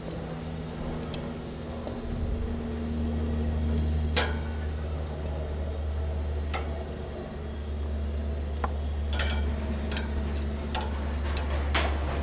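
Squash wedges sizzling on a hot gas grill grate as oil marinade is brushed on, over a steady low hum. A few sharp clicks and taps come every couple of seconds as the pieces are handled on the grate.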